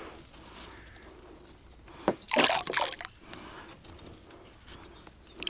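Water splashing and sloshing, with one louder splash lasting under a second about two seconds in and another at the very end.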